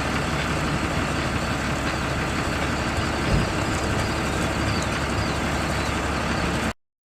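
Steady outdoor background noise with a low rumble, which cuts off abruptly near the end.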